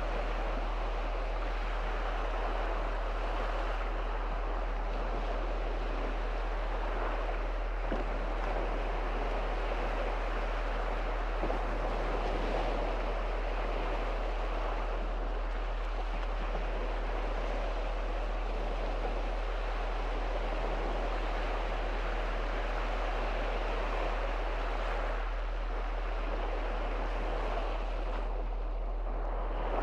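Small sea waves washing onto a shallow beach on the Gulf of Riga, heard as a steady rush of surf. A constant low rumble lies underneath.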